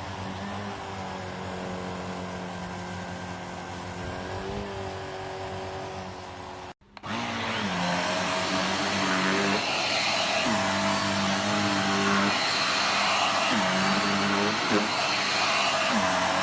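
JIMMY JV35 corded handheld dust-mite vacuum cleaner running with a steady motor hum. After a brief drop-out about seven seconds in, it is louder with a strong airy hiss, and its motor note dips and recovers several times.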